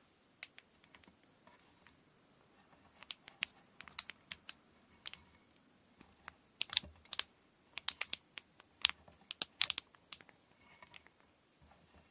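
Kumihimo braiding tools being handled: irregular light clicks and taps, a few at first, then denser and louder from about three seconds in.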